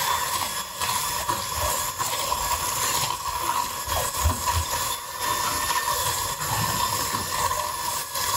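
Electric hand mixer running at a steady speed, its beaters whisking egg yolks and sugar in a glass bowl: a constant motor whine over a hiss.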